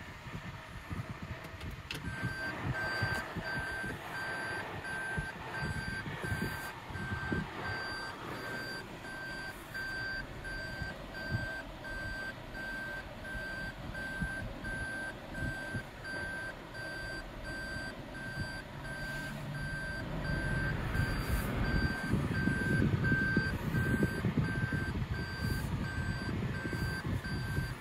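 Toyota Prius's in-cabin reverse warning beeping over and over, a steady high beep repeating at an even rate from about two seconds in, the sign that the car is in reverse gear. A low rumble from the cabin runs underneath.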